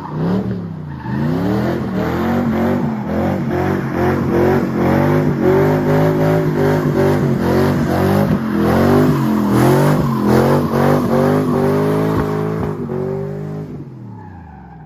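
Supercharged small-block Chevy V8 of a 1984 Camaro Z28 being revved over and over, its pitch climbing and dropping every second or so, then fading out near the end.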